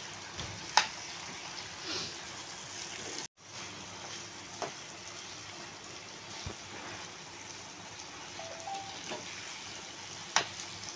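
Manchurian balls sizzling in sauce in a nonstick pan while being stirred with a spatula. The spatula knocks sharply against the pan about a second in and again near the end. The sound cuts out for a moment around three seconds in.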